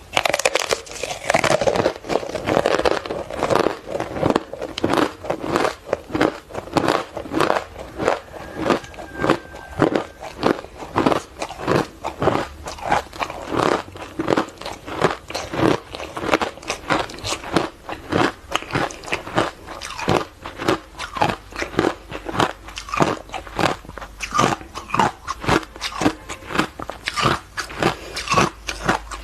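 Hard ice coated in matcha powder being bitten and chewed: a continuous run of sharp, crisp crunches, several a second.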